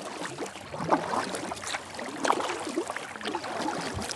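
Water lapping and splashing against a kayak hull in irregular slaps.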